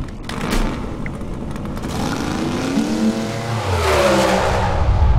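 Race car sound effects for a drag-racing logo sting: an engine revving with pitch climbing through the middle, building to its loudest point near the end.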